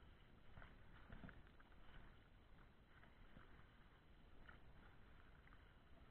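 Near silence: faint lapping and small splashes of choppy lake water, with a swimmer's strokes splashing in the distance.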